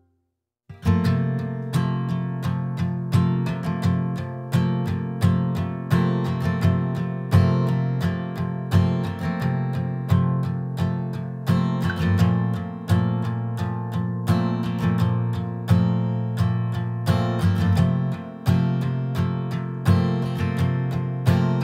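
Music led by a strummed acoustic guitar, starting about a second in after a brief silence, with a steady strumming rhythm.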